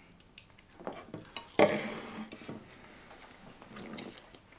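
Small handling noises of plates, cutlery and saucy wings: scattered clicks and rustles, with one louder short clatter about a second and a half in.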